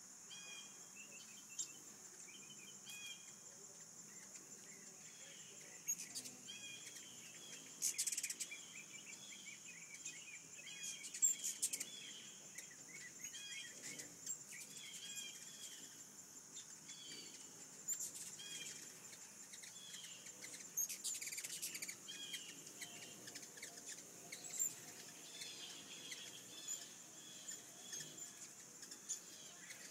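Birds chirping in short repeated calls every second or so over a steady, faint, high-pitched insect drone, with a few brief crackling bursts.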